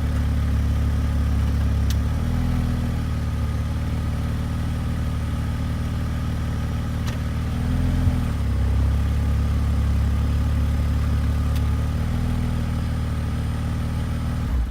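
2001 BMW E46 engine idling steadily, its low hum shifting slightly a few times, with one short knock about eight seconds in.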